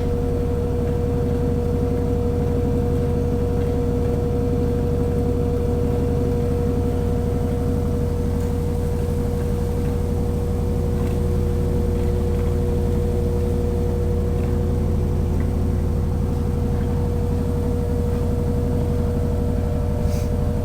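Electrolux 10 kg top-loading washing machine in its spin cycle: the motor and drum run at a steady speed with a constant high whine over a low hum. The cabinet shows no vibration or shaking.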